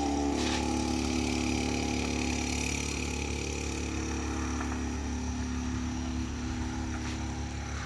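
Small engine of a 50cc pocket quad running at a steady speed, a slight drop in pitch about six seconds in and the sound fading a little toward the end.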